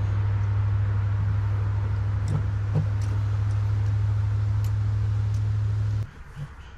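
Steady low mechanical hum from the parked Polaris Ranger XP 1000 side-by-side, which cuts off suddenly about six seconds in.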